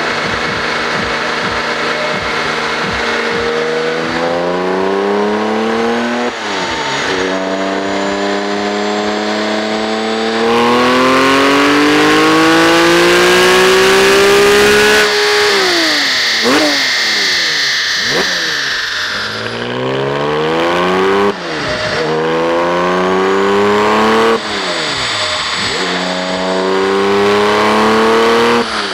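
Porsche 911 GT3 RS naturally aspirated flat-six with an Akrapovič exhaust, run hard under load on a dynamometer. It climbs in pitch through several gears, with quick upshifts that cut the note for a moment. About halfway through it lifts off and winds down, then pulls up through the gears again.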